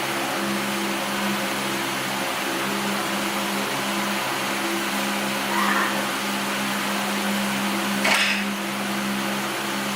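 A steady mechanical whir with a low hum and hiss, like a running motor or fan. A brief squeak comes near the sixth second, and a sharp click about 8 seconds in.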